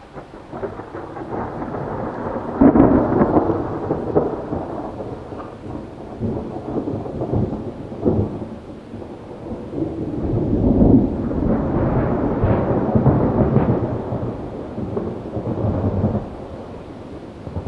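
Thunder rolling after a lightning strike: a long low rumble with crackles, building to a loud peak about three seconds in, swelling again for several seconds past the middle, then dying away near the end.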